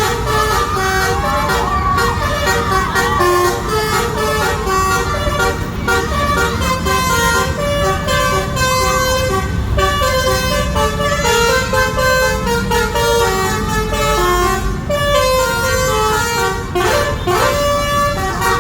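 Indonesian 'telolet' bus horn, a multi-tone musical horn, playing a tune of short stepped notes over the bus's running engine, with a few sliding notes near the end.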